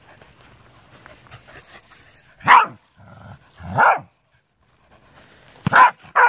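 A corgi barking four times: two single barks about a second apart midway, then two quick barks near the end.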